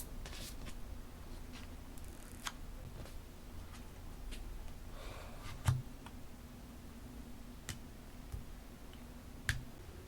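Sparse small clicks and taps of paper and stationery being handled on a desk, with a brief soft rustle about five seconds in and two louder knocks, one just before six seconds and one near the end.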